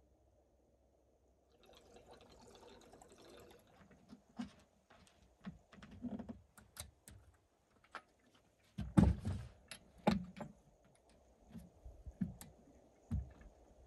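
Fuel poured from a plastic combi can into a Stiga chainsaw's tank, a soft hiss lasting about two seconds. Then a run of clicks and knocks as the can and saw are handled, with the heaviest thumps about nine and ten seconds in.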